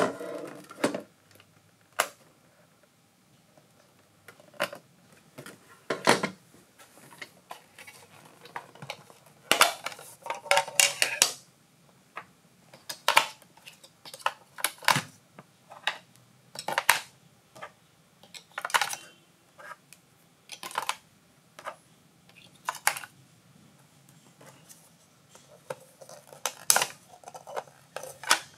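Short, separate clicks and clatters of AA batteries being handled and pressed into the plastic battery compartment of a model forklift, with a few plastic knocks from turning the model over. One every second or two, with quiet between.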